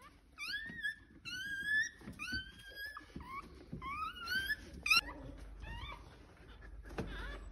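Newborn husky puppy squealing: a run of high, rising cries, about six in the first five seconds, with fainter ones after.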